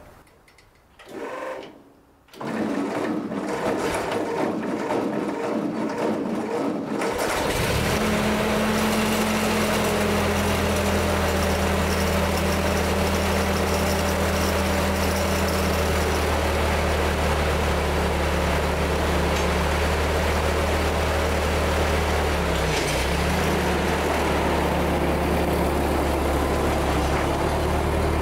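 Ford 2N tractor's flathead four-cylinder engine being cranked by its starter for about five seconds, then catching and settling into a steady idle that runs on to the end. The engine has just had its blown head gasket replaced.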